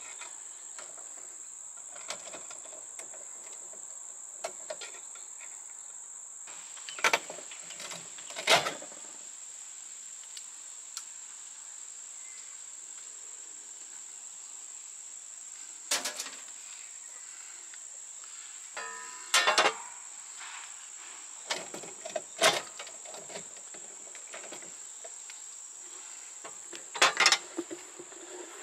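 A steady, high-pitched insect chirring, with scattered sharp clicks, knocks and rattles of wires and wire nuts being handled and untwisted at a metal electrical box.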